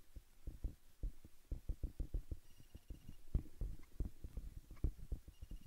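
Handling noise on a handheld camera's microphone jostled in a crowd: irregular low thumps and rumbles, several a second. A faint, rapid high-pitched beeping comes twice, about halfway through and near the end.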